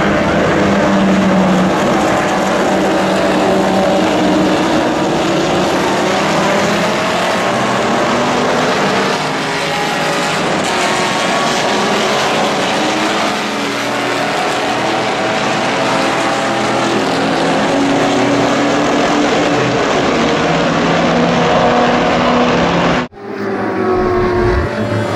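A field of 1955–1962 vintage GT race cars, mostly front-engined, running hard past the start/finish straight at a race start. Many engines sound at once, their notes overlapping and shifting in pitch as cars go by. About two seconds before the end, the engine sound cuts off suddenly and music starts.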